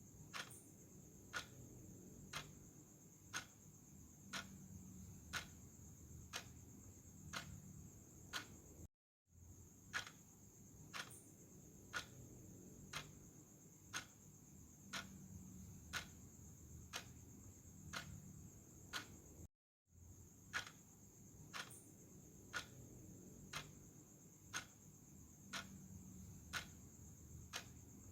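Clock ticking once a second: quiet, sharp clicks over a faint steady high hiss. The sound drops out completely for a moment twice.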